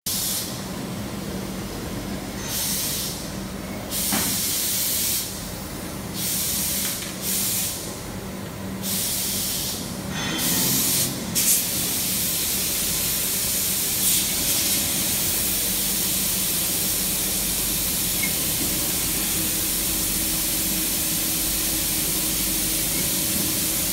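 Steady hissing from workshop machinery. In the first ten seconds or so, louder hiss switches on and off several times in bursts of about a second; after that it holds as one constant hiss over a faint low hum.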